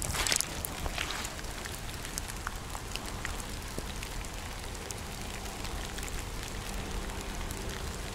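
Light rain falling on wet leaves and on the camera: a steady hiss with scattered drop ticks. A footstep rustles in the leaves right at the start.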